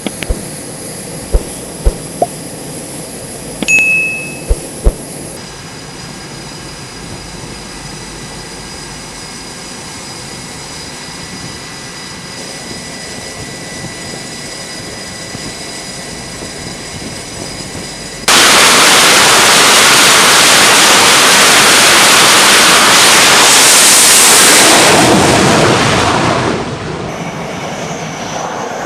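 Fighter jet engines on an aircraft carrier flight deck: a steady whine of running jets with a few sharp clicks, then about eighteen seconds in a sudden, very loud rush of jet noise lasting some eight seconds as an F-18 goes to full power for launch, easing off near the end.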